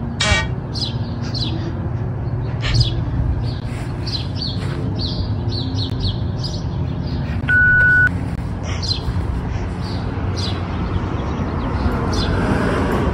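Small birds chirping over and over, short quick high notes, over a steady low background rumble. About seven and a half seconds in, a loud steady beep sounds for about half a second.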